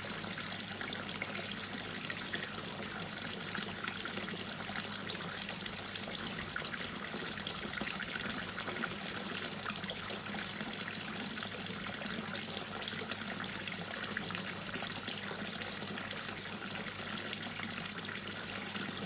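Water dripping and trickling steadily into a pond: a dense, continuous patter of small drops over a running trickle.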